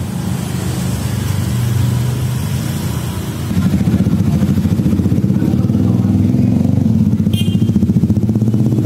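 A motorcycle engine running steadily close by, its low, evenly pulsing note stepping up in loudness about a third of the way in. A brief high squeak sounds near the end.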